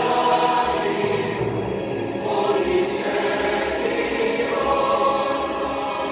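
Music: a choir singing sustained chords.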